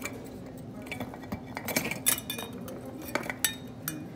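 Small Christmas ornaments and decorations clinking against each other as a hand rummages through them in a plastic bin, with a cluster of sharp clinks about two seconds in and a few more near the end.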